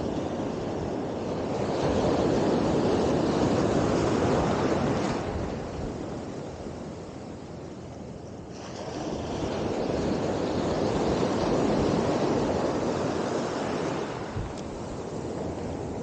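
Surf breaking and washing up the beach in two long swells of rushing water, the first a couple of seconds in, the second through the middle, fading near the end.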